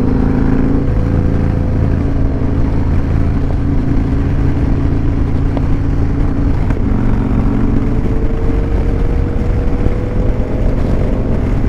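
Motorcycle engine running steadily at road speed, heard from the rider's seat, its note rising slightly in the last few seconds.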